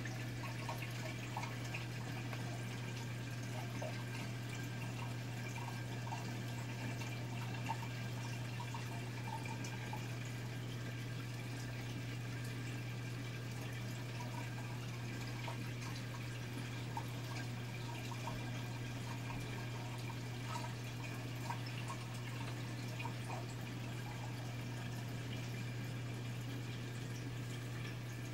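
Reef aquarium running: a steady low hum from its circulation pump, with faint water trickle and scattered small drip-like ticks.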